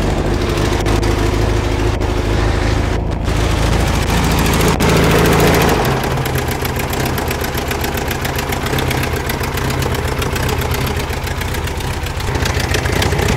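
Air-cooled VW flat-four engine that has just caught on high choke, running unevenly on five-year-old fuel with a new, untuned carburetor; the valve train is clanky, which the mechanic takes for valves needing adjustment. About six seconds in the note drops and changes as the carburetor is worked by hand, and it picks up again near the end.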